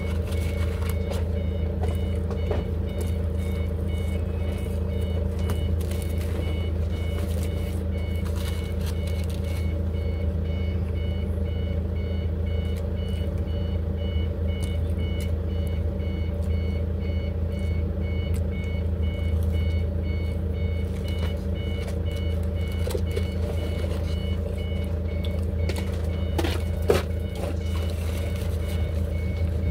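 Steady low machine hum with a high electronic beep repeating at an even pace throughout, like a vehicle's warning beeper. A brief sharp knock near the end.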